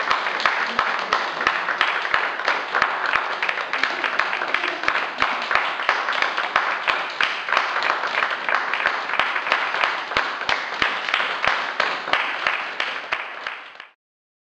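Audience applauding: a dense patter of hand claps that fades out sharply near the end.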